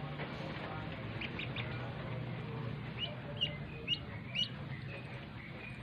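Duckling peeping: short high rising peeps, a few faint ones about a second in, then four louder ones between three and four and a half seconds in.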